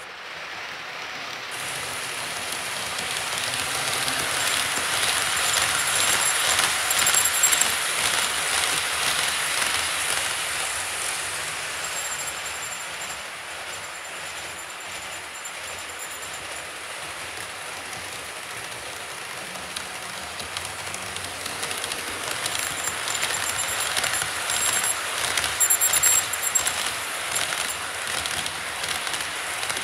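Model freight train rolling around the layout track: a steady rumble with quick clicking from the wheels. It swells louder as the train comes close, about six seconds in and again near the end.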